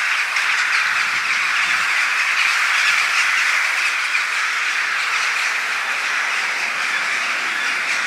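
A large flock of birds calling all at once: a loud, dense, steady chorus with no single call standing out.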